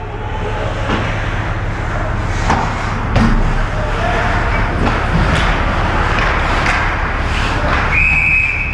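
Live ice hockey rink sound: a steady rumble and hiss broken by several sharp knocks of sticks and puck, with a referee's whistle starting near the end and held steadily.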